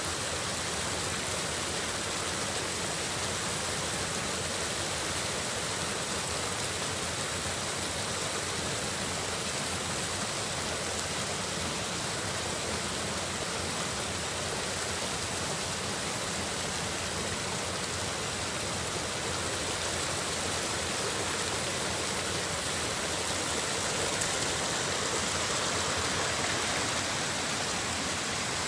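Steady rushing of a small mountain stream cascading over rocks, an even hiss with no breaks, swelling slightly a few seconds before the end.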